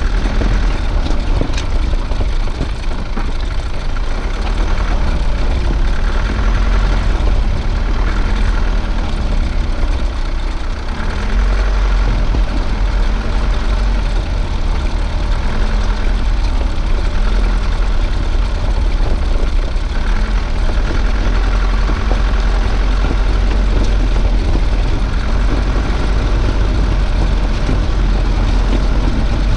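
Off-road vehicle driving slowly over riverbed gravel: a steady engine note with a strong low rumble and road noise throughout.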